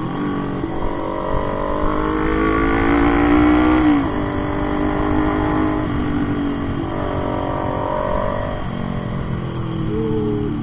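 Motorcycle engine accelerating under load, its pitch climbing for about four seconds, dropping sharply at a gear change, then climbing again near the end.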